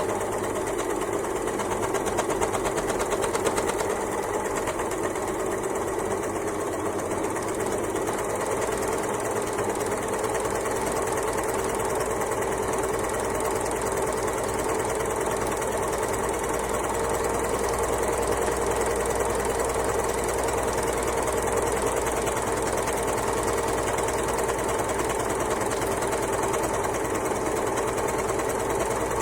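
Overlocker (serger) sewing machine running continuously at a steady high speed, a fast even rattle of stitching with a hum whose pitch creeps up slightly about halfway through.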